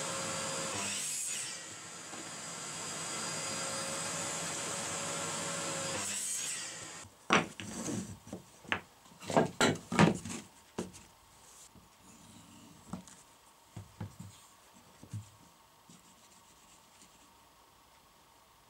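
Electric mitre saw running and cutting through a pine board, a steady motor whine that cuts off suddenly about six seconds in. Then short wooden blocks are set down and knocked on a wooden workbench: a quick run of sharp, loud wooden knocks, followed by quieter taps and handling.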